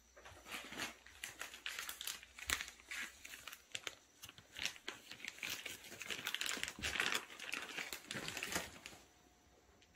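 Plastic treat bag crinkling and rustling in quick irregular bursts as it is handled, stopping shortly before the end.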